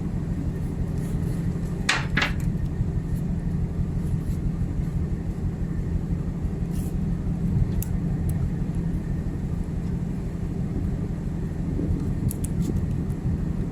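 Steady low drone of a ship's machinery, with a brief sharp knock about two seconds in and a few faint clicks near the end.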